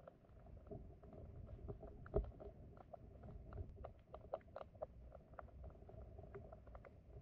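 Flowing stream water heard underwater: a faint low rumble of the current with many small irregular clicks and ticks, and one sharper knock about two seconds in.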